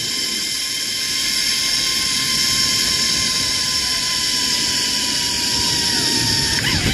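Zip line trolley pulleys running along the steel cable at speed: a steady high whir whose main tone sinks slightly as the ride goes on.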